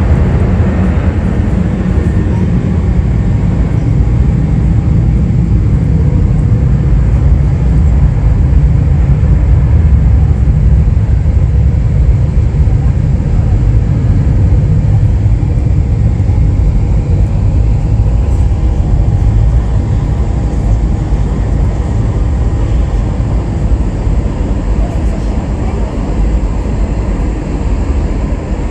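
Jet airliner engines rumbling as the aircraft passes, with a deep roar that swells about ten seconds in and then slowly fades.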